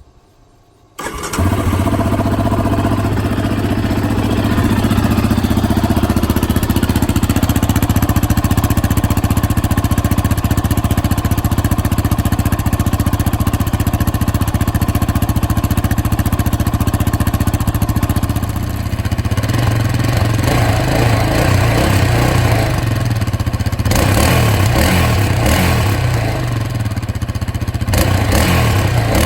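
A Yamaha Raptor 700R ATV's single-cylinder four-stroke engine starts about a second in and runs on, exhausting through the stock exhaust with its baffle still fitted. The engine note shifts a few times in the second half.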